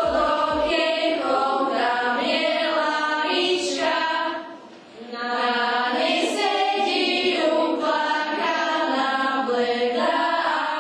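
A group of schoolchildren singing a song together, with a short break between phrases about four to five seconds in.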